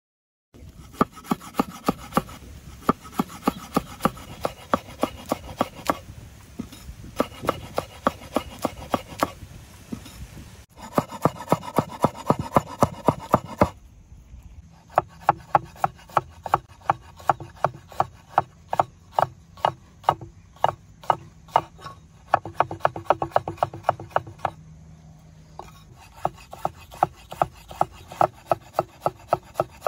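Heavy cleaver-style knife chopping on a wooden cutting board in quick, even strokes, about four knocks a second with a few short pauses. The blade is mincing curry leaves, and after a break about halfway through it chops ginger.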